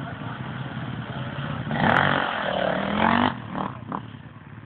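Enduro dirt-bike engines running, then one revs hard and pulls away: from just under two seconds in it gets loud with the engine note rising for about a second and a half, then drops back.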